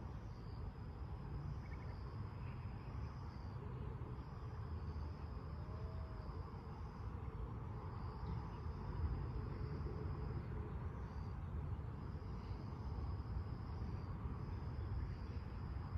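Insects trilling in a high, steady buzz that comes in stretches of two to three seconds with short breaks between them, over a continuous low rumble.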